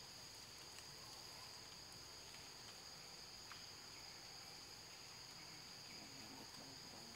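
Faint, steady, high-pitched drone of insects in two even tones.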